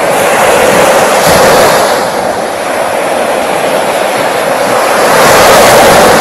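Small waves breaking and washing up a sandy beach: a steady rush of surf that swells about a second in and again near the end.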